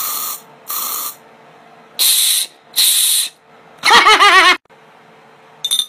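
Aerosol body spray can sprayed in four short hissing bursts. About four seconds in comes a loud, wavering vocal cry, and then a brief hiss near the end.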